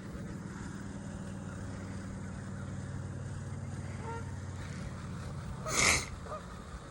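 Waterfowl honking: a few short calls over a steady low hum, with one louder call about six seconds in.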